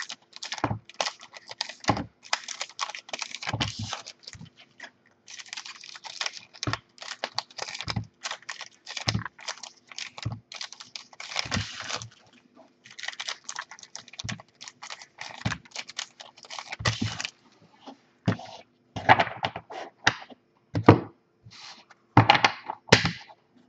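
Trading cards being thumbed through and sorted by hand: irregular quick clicks and dry rasps of card sliding on card, with now and then a light knock as cards or a stack are set down on the wooden desk.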